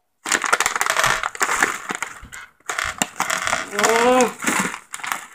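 A hand rummaging in a package of Skittles right next to the microphone: the packaging crinkles and the hard-shelled candies click and rattle against each other, in two long stretches.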